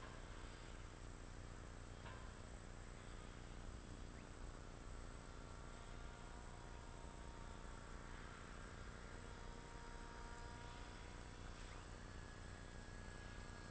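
Faint, high insect chirping repeating about twice a second, over a steady background hiss.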